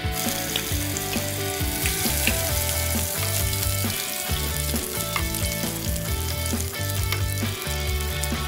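Chopped garlic and green chilies sizzling in hot oil in a nonstick frying pan and being stirred with a spatula. The sizzle starts abruptly as the chilies go in, over background music.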